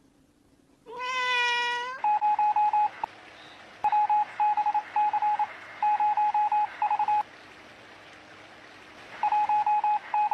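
A cat meows once about a second in. Then come repeated bursts of rapid electronic beeps, four or five short beeps per burst, all at one steady pitch, like a telephone ringtone.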